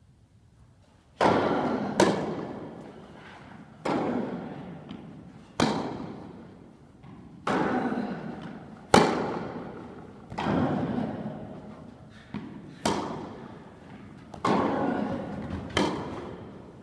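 Tennis rally on an indoor court: about a dozen sharp racquet strikes and ball bounces, one every second or two, each followed by a long echo off the hall. It starts with the serve about a second in.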